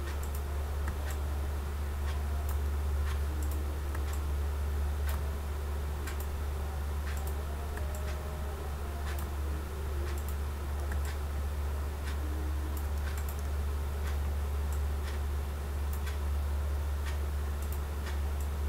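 Computer mouse clicking at a loose pace of about once a second as hull control points are selected and dragged. A steady low electrical hum lies underneath and is the loudest sound.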